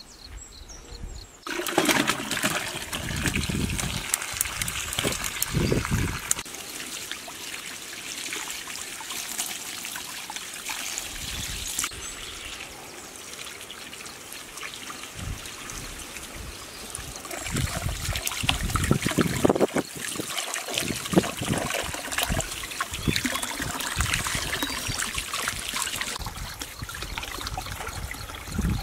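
Water running from an outdoor tap through a hose and splashing over vegetables being washed by hand in a basin. It starts about a second and a half in, with irregular splashes and knocks as the vegetables are handled.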